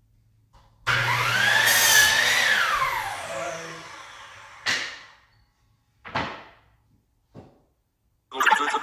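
An electric power tool motor starts about a second in, its pitch rising and then falling away over a few seconds as it winds down. Short sharp bursts of noise follow, and the motor starts again near the end.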